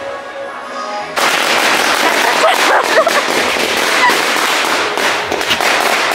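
A string of firecrackers starts going off about a second in: a loud, dense, rapid crackle of small bangs that goes on for several seconds, over music.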